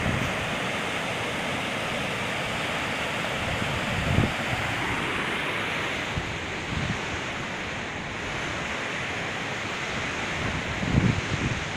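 Steady rush of a fast river's white water, running high with snowmelt. Wind buffets the microphone about four seconds in and again near the end.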